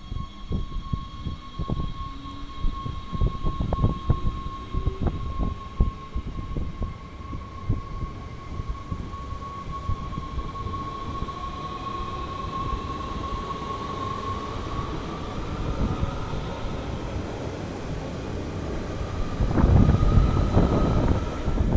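NS Sprinter Light Train electric multiple unit pulling away: its traction whine holds one pitch and then rises as the train gathers speed, over clattering wheels on rail joints. It gets louder about three-quarters of the way in as the cars pass close by.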